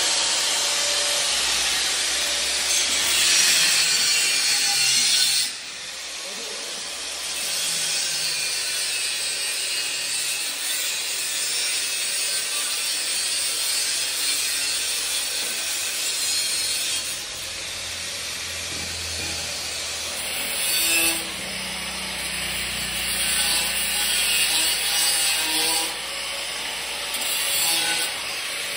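Handheld angle grinder with a thin cutting disc cutting through steel pipe: a harsh, high grinding screech that eases off briefly several times and then bites in again.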